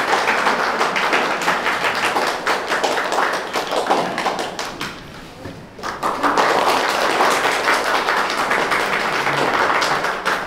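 A small group of people applauding with quick hand claps; the clapping dies down about five seconds in and picks up again about a second later.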